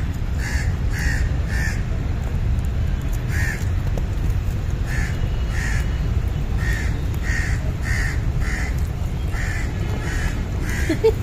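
A crow cawing repeatedly in short runs of two to four calls about half a second apart, over a steady low rumble. A brief, sharper sound stands out just before the end.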